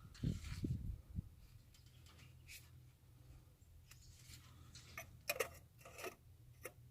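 Faint clicks and light knocks of a fluid bottle and reservoir cap being handled while power steering fluid is topped off, over a low steady hum. A few soft knocks come in the first second, and a cluster of sharp clicks comes near the end.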